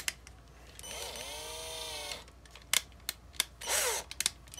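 Cordless drill motor whirring steadily for about a second while its keyless chuck is gripped by hand, then a few sharp clicks and a short rattle.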